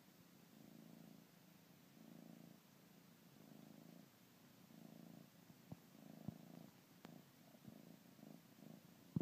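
Bengal kitten purring softly while nursing on a blanket. The purr swells and fades with each breath, roughly every second and a half, with a few soft clicks in the second half.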